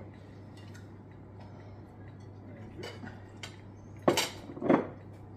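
Cutlery clinking against a bowl while eating: a few light taps, then two louder knocks about four seconds in, half a second apart.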